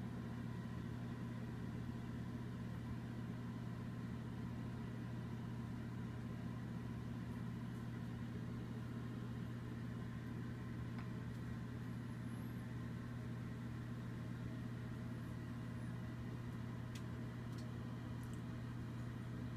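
A steady hum with a fainter, higher steady whine over it, unchanging throughout.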